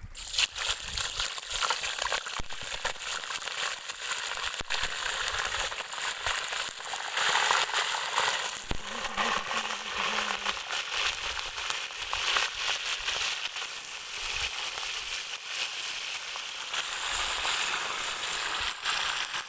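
Food frying in hot oil, a steady crackling sizzle that starts abruptly.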